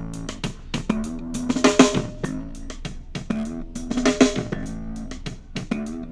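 Music with a drum kit and guitar played back on a JBL GO Bluetooth speaker for a sound test, with a drum-and-guitar phrase repeating about every two and a half seconds.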